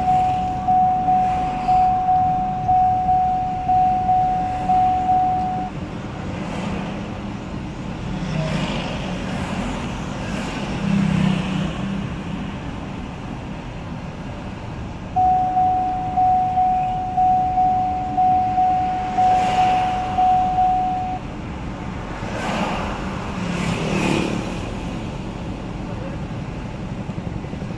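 An electronic chime beeps about twice a second, each beep fading quickly, in two runs of about six seconds: one at the start and one about midway. Steady road noise runs underneath, heard from inside a moving car.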